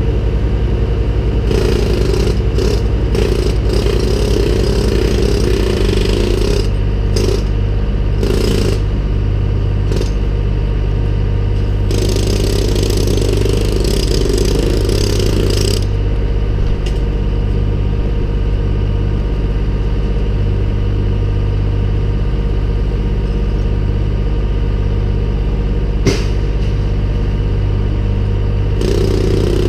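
An engine runs steadily at idle throughout. Over it, a jackhammer breaks up the brick chimney in bursts of a few seconds, the longest about five seconds, with a single sharp knock a little before the end.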